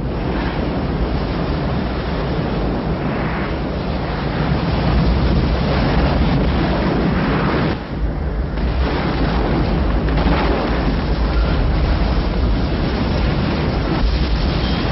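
Film sound effects of a giant tsunami wave flooding a city: a dense, continuous rush of water over a deep rumble, dropping away briefly about eight seconds in before surging again.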